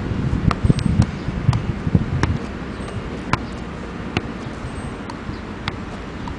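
Football being juggled, the ball tapping off foot and knee in irregular light touches, several close together in the first two seconds and sparser after. Wind rumbles steadily on the microphone underneath.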